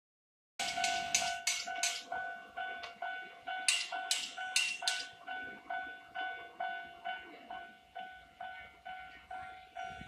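Japanese railway level crossing warning bell ringing in an even ding-ding rhythm, about two strikes a second, as the crossing is closed for an approaching train. A sharper, brighter chime joins in quick runs near the start and again around the middle.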